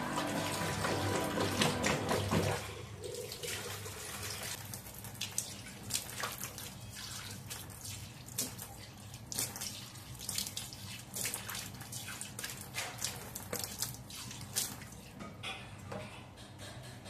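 Tap water running into a stainless steel sink and stopping about two and a half seconds in, followed by scattered drips and small splashes as a hand rinses and wipes the wet steel basin.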